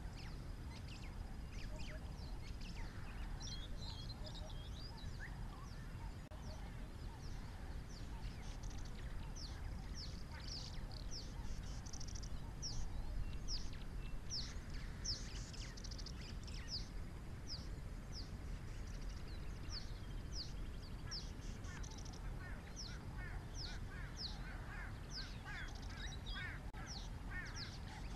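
Wild birds calling: many short, high, falling chirps repeated over and over, with lower chattering calls joining near the end, over a low steady rumble.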